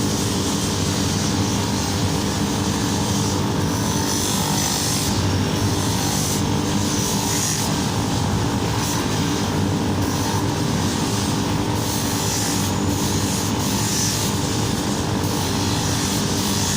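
A motor-driven machine running steadily: a continuous hum with an even whirr and hiss above it, unchanging throughout.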